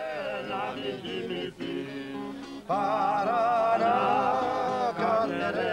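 A man singing with a wavering vibrato to plucked guitar accompaniment, growing louder about three seconds in.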